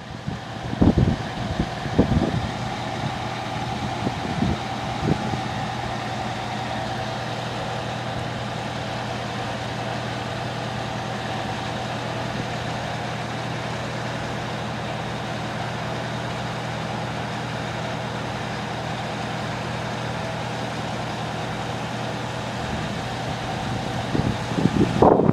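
Fire truck's diesel engine idling steadily, with a few knocks in the first few seconds.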